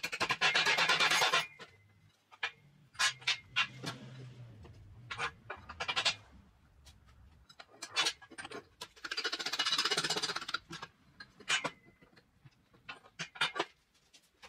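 Metal parts of a skid steer's variable speed drive pulley being worked on and handled on a steel workbench: scattered knocks and clinks of steel parts, with two noisy handling stretches about a second and a half long, one at the start and one around ten seconds in.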